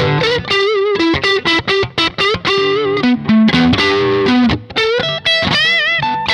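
Seven-string multiscale electric guitar played on its neck single-coil pickup alone: a quick single-note lead line, with vibrato on held notes about two seconds in and near the end.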